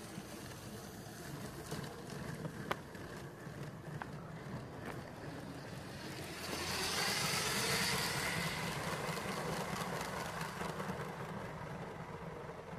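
Motorised Lego trains running on plastic track: a steady motor hum with a few sharp clicks. About six seconds in, a louder rushing swell rises and lasts a few seconds.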